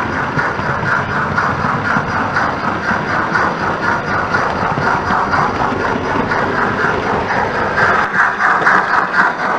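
Sound decoder in a Hornby OO-gauge Britannia 4-6-2 model locomotive playing a steady, rhythmic steam exhaust chuff as the locomotive runs.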